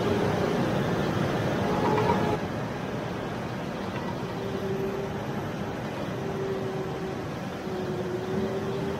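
Loader tractor's engine working hard as it pushes a load of chopped corn silage up a bunker pile to pack it. The sound eases a little about two and a half seconds in, and a faint whine comes and goes after that.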